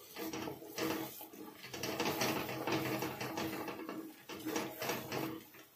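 Wooden spatula stirring and scraping a thick masala paste frying in oil in a metal kadhai, in repeated irregular strokes over a steady low hum. The paste is fried to the point where the oil has separated.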